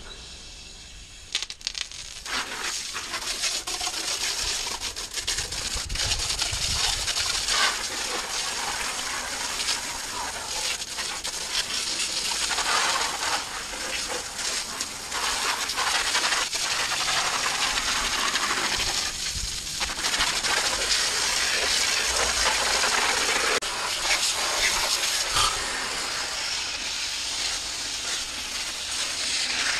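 Garden hose with a fine-tip nozzle spraying a jet of water onto a DE pool filter's grid assembly, a steady hissing spray with water spattering off the grids as old DE and dirt are washed off. The spray starts about two seconds in and briefly eases off about two-thirds of the way through.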